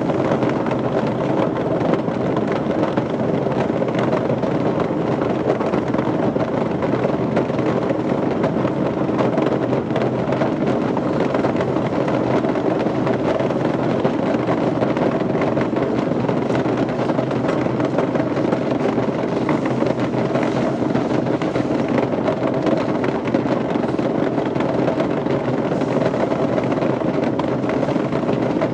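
Steady, unbroken machinery drone with no pauses or separate impacts.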